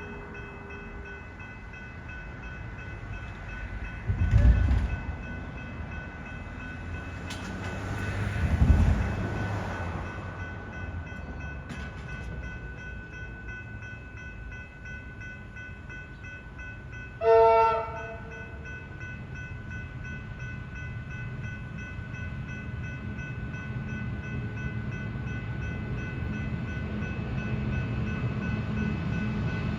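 Train running with a steady hum and whine, two low thumps early on, and a single short horn blast a little past halfway; the rumble grows toward the end as the train draws nearer.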